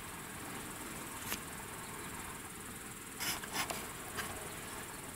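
Crickets chirring steadily at night, a high even trill, with a few short clicks, the loudest a small cluster about three seconds in.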